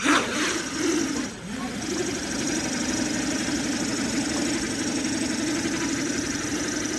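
SJRC F11 quadcopter's brushless motors spinning 7x4 propellers as it lifts off and hovers: a steady propeller hum with a wavering buzz, louder for the first second or so and then holding even.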